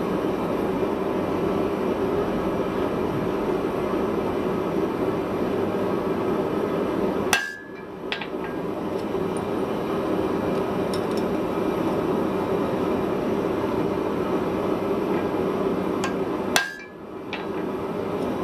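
Two single hammer blows on steel at the anvil, about nine seconds apart, each a sharp clang with a brief ring, over the steady roar of a gas forge burner.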